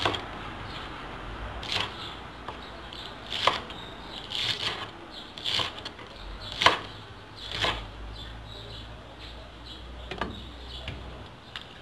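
Cleaver chopping green onion stalks on a wooden cutting board: single sharp knife strikes, about one a second, with a longer gap near the end. A low steady hum runs underneath.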